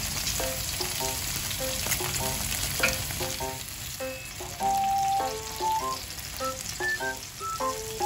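Pork belly slices sizzling in their rendered fat on a foil-lined electric grill pan, a steady crackling hiss.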